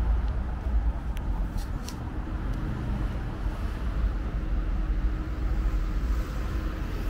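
City street traffic noise: a steady low rumble of passing cars, with a few brief sharp clicks between one and two seconds in.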